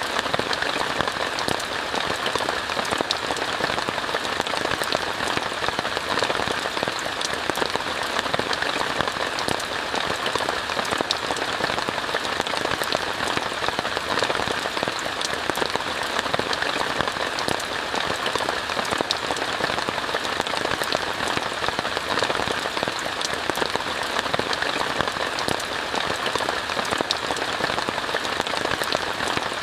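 Steady rain pattering on a tent, a dense even hiss dotted with many small drop ticks.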